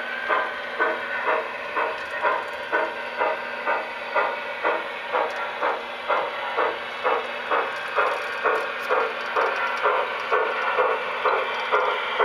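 Sound-equipped O scale model steam locomotive chuffing steadily, about two chuffs a second, over a background steam hiss.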